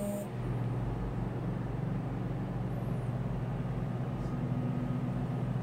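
Steady low engine hum that holds the same speed throughout.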